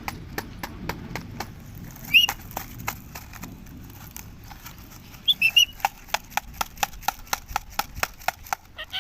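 Indian ringneck parakeet giving one short, loud rising-and-falling call about two seconds in and a quick run of high chirps a little past the middle. A steady run of sharp clicks, several a second, goes on throughout.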